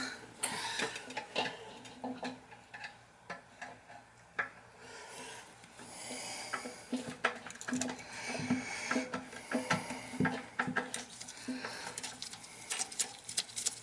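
Scattered clicks, taps and knocks with a stretch of scraping, from loose metal and plastic toilet tank bolt hardware and tools being handled while the old tank bolts are taken out. A faint steady low hum lies under it.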